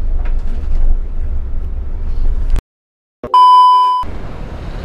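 Low rumble of the Scania K360iB coach running, heard inside its cabin, cut off abruptly about halfway through. After a brief silence comes a loud, steady electronic beep lasting under a second.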